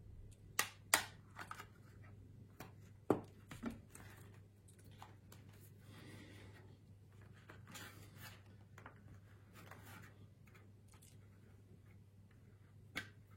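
Plastic handling sounds: a Pinlock insert being pressed and flexed into place on a helmet visor, with scattered sharp clicks and faint rustling, the loudest clicks about one and three seconds in.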